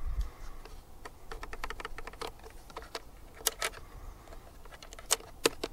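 A quick run of small, light clicks and taps, with a few sharper ones around the middle and near the end: small parts being handled on the open battery case.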